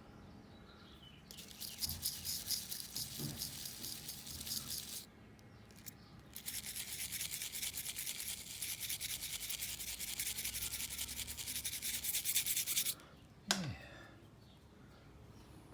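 Small stainless-steel wire brush scrubbing by hand on a pocket knife's scales and brass posts to clear off corrosion, in two long bouts of quick scratchy strokes with a short pause between them. A single short knock near the end.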